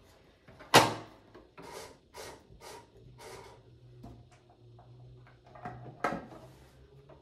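A sharp knock, then several short scraping, rustling handling noises as the overlock's foot controller and cord are moved about on the table. From a little before halfway a faint, steady low hum sets in while the controller is pressed, and another knock comes near the end.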